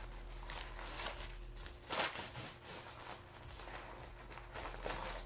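A paper bag being rustled and crinkled by a dog pawing and mouthing at it, in faint irregular bursts, with one sharper crackle about two seconds in.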